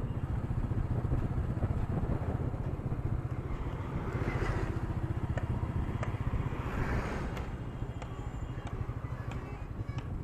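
Royal Enfield Meteor's single-cylinder engine thumping steadily at riding speed, recorded through an action camera's built-in microphone with road and wind rush. Two louder rushes of noise swell and fade about four and seven seconds in.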